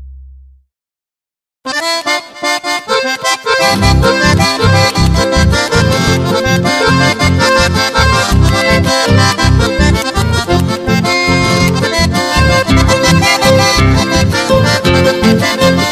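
The last low notes of one tune die away, and after about a second of silence an accordion starts a new tune in the Corrientes chamamé–polka style. A pulsing bass beat joins about two seconds later.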